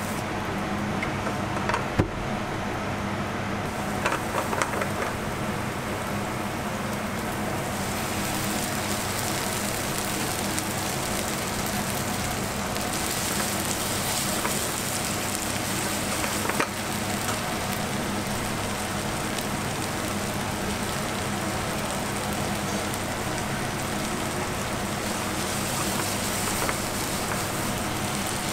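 Food sizzling in a frying pan over a gas burner: bread toasting, then pulled beef with diced peppers and onions frying as a wooden spatula stirs it. A steady crackling sizzle that grows brighter about eight seconds in, with a few sharp knocks.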